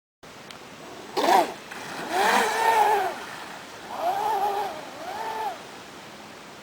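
Brushless electric motor of a 6S LiPo RC boat whining up and falling back in pitch through four short throttle blips. The first blip is brief and comes with a loud rush of noise, and the second with a smaller one.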